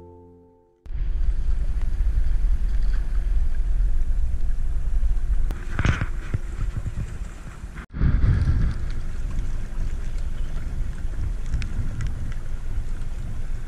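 Wind buffeting the microphone and water rushing past a canoe catamaran under way on choppy water. A short louder sound about six seconds in, and a music tail that dies away in the first second.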